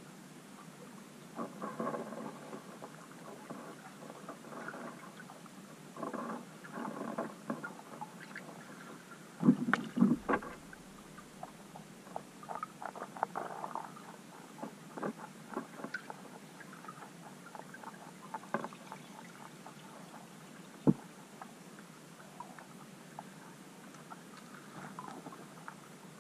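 Underwater sound picked up by a camera on the lake bed: a faint steady hiss with irregular clicks, taps and gurgling patches, a louder cluster of knocks about ten seconds in, and a single sharp click a little after twenty seconds.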